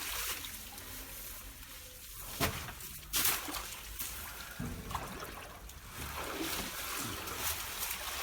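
Water trickling and splashing, broken by a few sharp knocks, the strongest about two and three seconds in.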